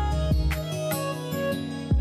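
Instrumental background music: a melody of separate notes over a low bass line.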